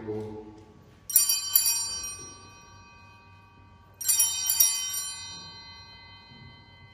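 Small altar bells rung in two rounds about three seconds apart, each a quick cluster of strikes that rings out and fades slowly: the signal for the elevation of the chalice at the consecration of the Mass.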